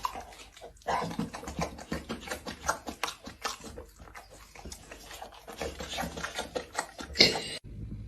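A dog making small sounds, mixed with a run of irregular clicks and knocks. The sound cuts off abruptly near the end.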